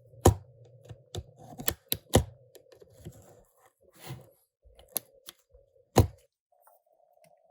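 Irregular sharp clicks and taps of small hand tools and plastic parts against a smartphone being taken apart, over a faint steady hum.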